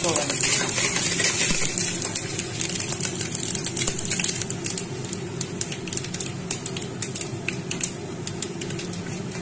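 Tempering spices frying in hot oil in a pressure cooker: urad dal, cumin and mustard seeds with curry leaves and green chillies. The oil sizzles steadily, with many small pops and crackles from the seeds.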